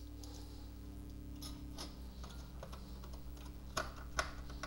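Light, scattered clicks and taps of a screwdriver and small screw against the metal shield and plastic case of a Coleco Adam Data Drive as the screw is fitted, with two sharper clicks near the end, over a faint steady hum.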